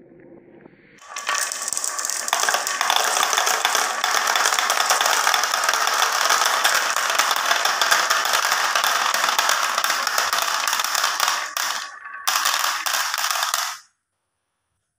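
A stream of glass marbles rolling down a wavy wooden HABA slope and dropping into a plastic toy dump truck's bed, a dense continuous clatter of marbles knocking on wood, plastic and each other. It breaks off briefly near the end, resumes, and then stops.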